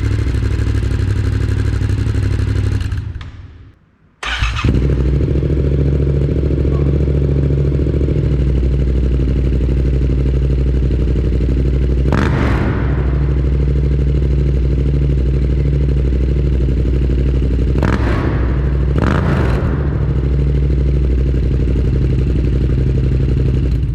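Yamaha MT-07's 689 cc parallel-twin idling through a Mivv GP Pro Carbon exhaust. It dies away about three seconds in, is started again about a second later, and settles into a steady idle with three short blips of throttle later on.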